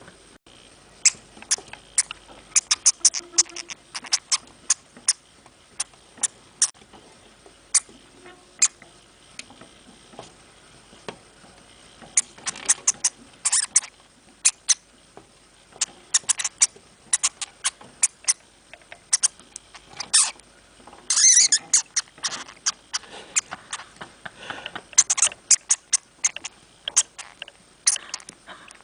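A hamster moving about, making small sharp clicks and scratches that come irregularly and in quick clusters, with a few short bursts of rustling.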